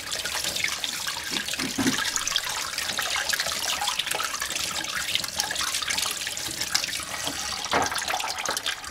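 A water tap running steadily into a sink while hands are washed under it.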